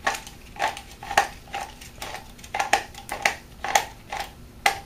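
Echo Speed Feed string-trimmer head being wound by hand, its plastic knob clicking as it is turned to wind in the trimmer line: a run of short, sharp clicks, irregular, at about three a second.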